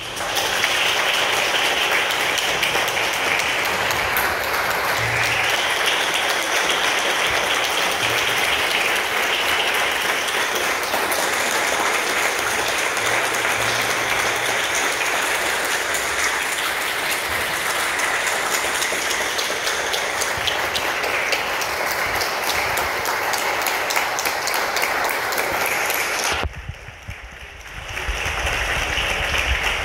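A church congregation applauding in a standing ovation, dense and steady. It breaks off briefly near the end.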